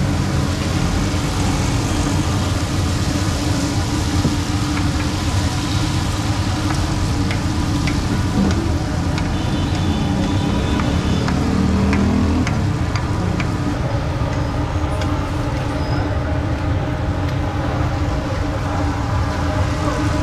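Steady roadside traffic noise from passing vehicles, mixed with hot oil sizzling and crackling as egg malpura batter fries in a large karahi.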